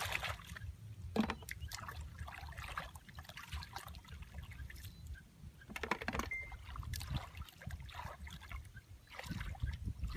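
Hands sloshing and splashing in shallow muddy water while groping through the mud for fish by hand, a string of irregular small splashes and trickles over a low rumble.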